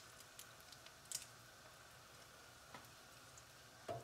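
Near silence: a faint steady hum with a few scattered light clicks. Near the end comes a short, louder clatter as a spatula goes to the frying pan.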